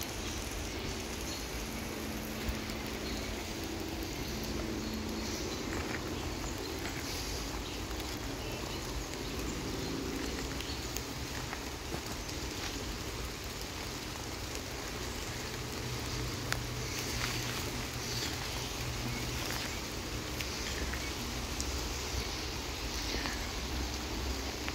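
Steady heavy rain falling through the tree canopy, a constant hiss with many small drops ticking on leaves.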